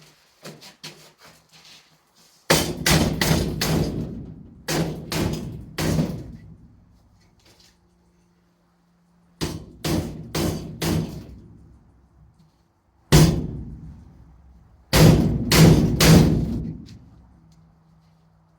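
Mallet blows on a steel hat channel, driving a tight-fitting backing insert into it. They come in quick runs of three to five strikes, with pauses between, each blow leaving a brief metallic ring.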